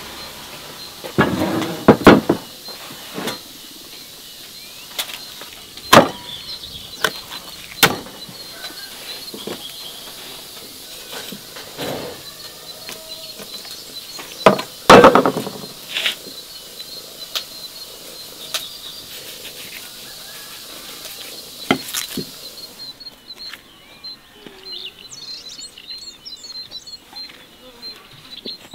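A heavy kitchen knife chopping a raw lamb joint on a wooden board: sharp irregular chops a second or several apart, the loudest clusters a couple of seconds in and about halfway through. Near the end the chopping stops and birds chirp.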